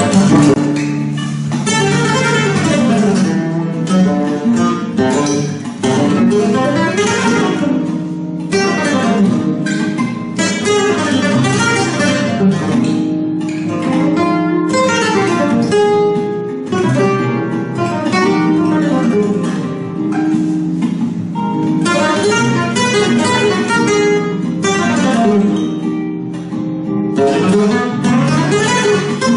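Flamenco guitar playing: quick runs of plucked notes mixed with sharply strummed chords.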